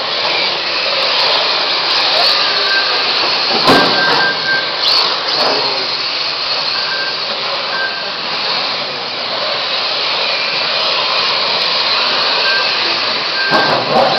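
Electric radio-controlled Mini cars racing: a steady whine and hiss of small electric motors and tyres, with short high beeps several times and a sharp knock about four seconds in.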